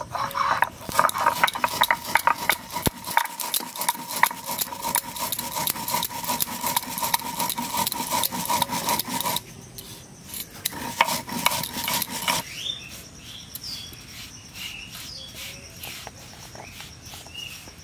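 Fennel seeds being ground on a stone slab (shil-nora) with a hand-held grinding stone: a fast, gritty scraping and crunching that runs for about twelve seconds, with a brief pause past the nine-second mark, then stops. Softer brushing of the powder on the stone follows.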